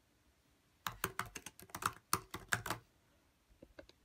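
Typing on a 2016 MacBook Pro's butterfly-switch keyboard: a quick run of keystrokes starting about a second in and lasting about two seconds, then a few lighter taps near the end.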